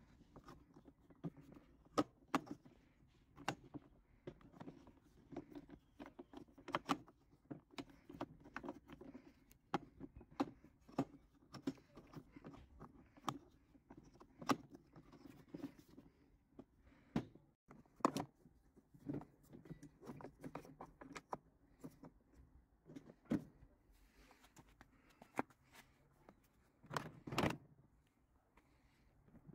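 Irregular clicks and knocks of plastic and metal parts being handled on a Makita DLM330SM cordless lawnmower's folding handle and its pivot clamps, with a louder cluster of knocks near the end.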